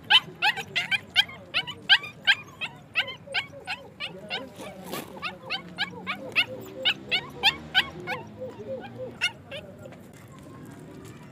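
Puppies yelping in a rapid string of short, high-pitched yips, about three a second, with softer lower whines beneath; the yips thin out near the end.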